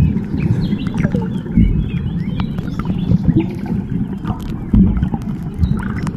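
Muffled underwater noise picked up by a camera held in the sea: a steady low rumble of moving water with scattered clicks and a few dull thumps.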